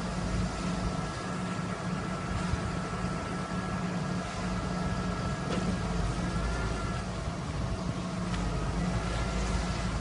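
Engine of a crane truck running steadily while its knuckle-boom crane works, with a thin steady whine above the engine note and a couple of faint clicks partway through.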